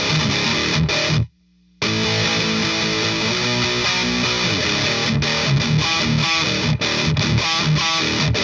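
High-gain distorted electric guitar played through a Rivera Knucklehead Reverb KR100 tube amp head. A choppy rhythmic riff stops dead for about half a second a little over a second in, then held chords ring out before the choppy riffing resumes.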